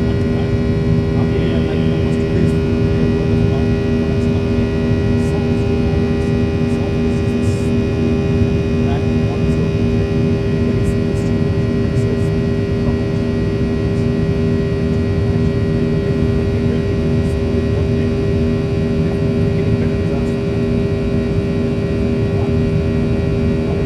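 Boeing 737-800 cabin noise during the climb after takeoff, heard from inside the cabin: the CFM56-7B turbofans' steady drone, with a steady hum of fan tones over a low rumble.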